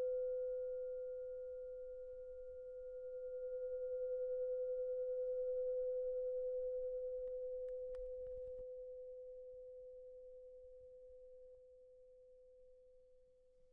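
A long ringing bell tone: one steady pitch with faint higher overtones, swelling a little partway through and then slowly dying away near the end.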